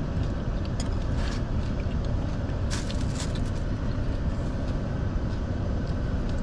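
Steady low rumble inside a car cabin with the engine running, with a few short light clicks about a second in and again around three seconds in.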